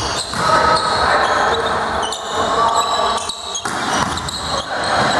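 Indoor volleyball play in a reverberant sports hall: several sharp hits of the ball amid a steady mix of voices.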